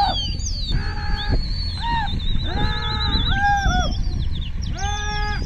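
Outdoor calls of wild birds over wind on the microphone: repeated short, hooting calls, high falling whistles and a steady wavering high trill.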